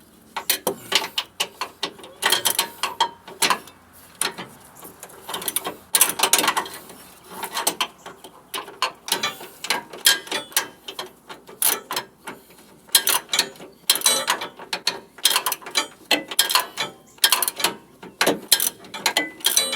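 Ratchet wrench clicking in short bursts of back-strokes, with metal tool clinks, as a sway bar link nut is run onto the rear suspension of a 2004 Chevy Trailblazer.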